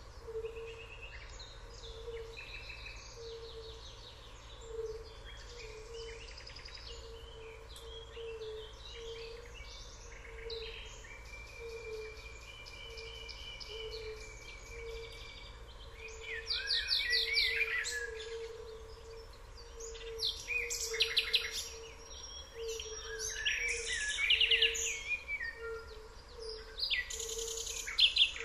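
Wild songbirds singing and chirping, with several voices overlapping; the song is louder from about halfway and again near the end. Underneath, a soft low note repeats evenly, a little more than once a second.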